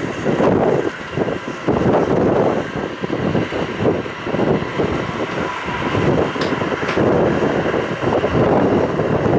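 Wind rushing and buffeting the microphone in gusts beside a moving Amtrak passenger train, over the train's steady running noise.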